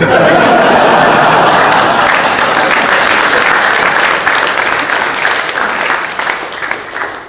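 Audience applauding, loudest at the start and dying away toward the end.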